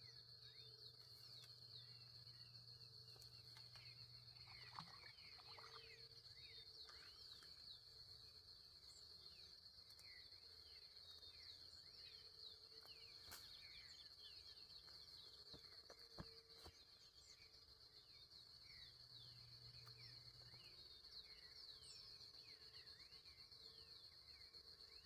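Faint outdoor nature ambience: a steady high-pitched insect trill, like crickets, with many short, quick bird chirps scattered over it.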